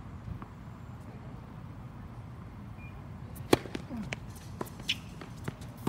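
Tennis serve on a hard court: a single sharp crack of the racket striking the ball about three and a half seconds in, the loudest sound, followed by several fainter knocks of the ball bouncing and being hit back.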